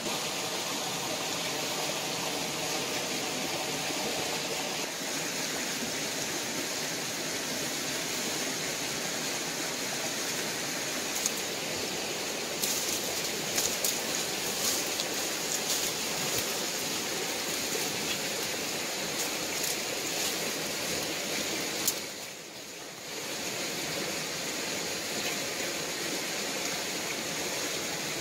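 A steady rushing noise, with dry twigs and leaf litter snapping and crackling as someone moves through undergrowth, mostly in the middle of the stretch.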